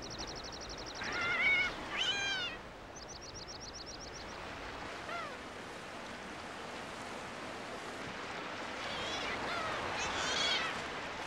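Wild animal calls: a rapid high trill twice in the first few seconds, and short wavering mewing calls, a pair near the start and a longer run near the end, over a steady hiss.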